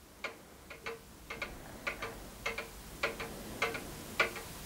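Mechanical clock ticking steadily, a little under two ticks a second, each tick often a quick double click.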